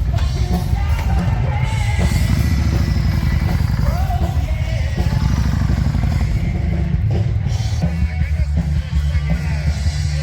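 Loud rock music with drums, bass and guitar.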